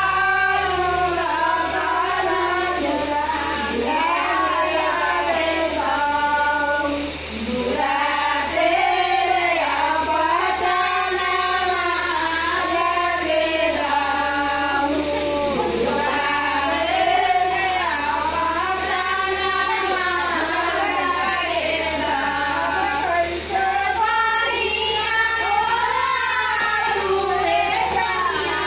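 Group of women singing a folk song together, one continuous melody sung in unison.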